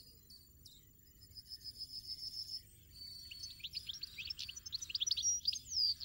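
European goldfinch twittering: a fast run of even, high notes about a second in, then a quick, varied series of high chirps and trills that grows louder toward the end.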